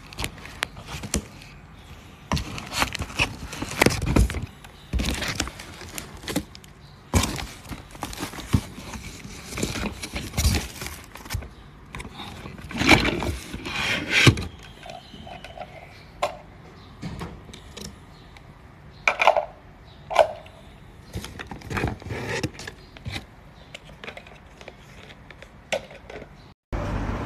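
Cardboard shipping box being handled and opened by hand: irregular scraping, rustling and knocks as the packed food grinder is unpacked.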